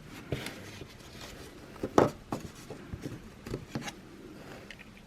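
Handheld pry tool clicking and scraping against the plastic shell of a car key fob as its two halves are worked apart, a run of small sharp clicks with the loudest snap about two seconds in.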